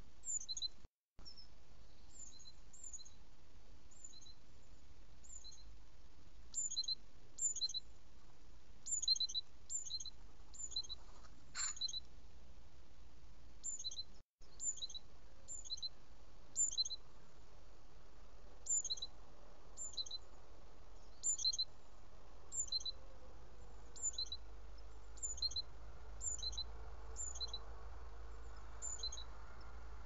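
Small songbirds chirping: short, high chirps that slide downward, often in pairs, repeated every second or so over a steady low background hum. A single brief click comes about halfway through.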